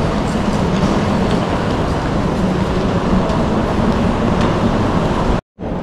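Train running at a station: a steady low rumble with faint clicks, cut off abruptly near the end.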